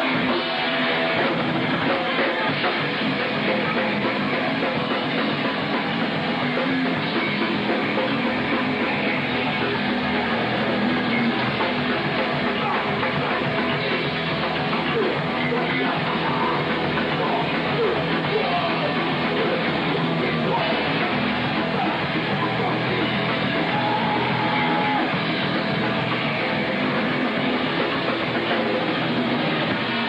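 Thrash metal band playing live: electric guitars and drum kit at a steady, dense level, sounding dull in the top end as picked up by a home video camcorder.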